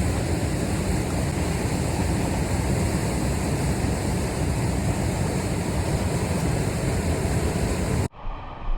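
Steady roar of high water pouring over a dam, which stops abruptly about eight seconds in.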